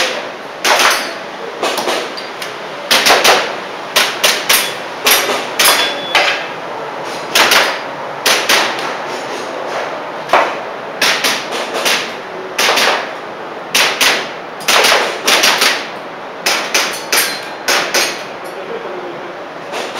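Airsoft pistol shots in rapid succession, many in quick pairs and short strings of sharp cracks separated by brief pauses. This is the rhythm of a practical-shooting course of fire.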